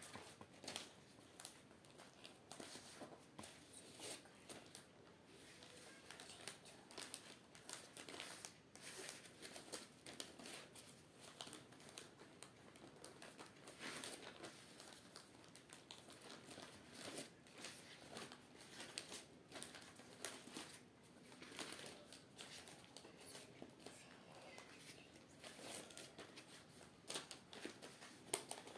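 A sheet of paper being folded and creased by hand, faint irregular rustles and crinkles with short crackles as the folds are pressed down.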